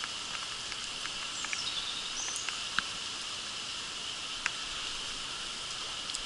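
Steady hiss of rain falling on a shallow creek, with a few sharp ticks of raindrops striking the camera.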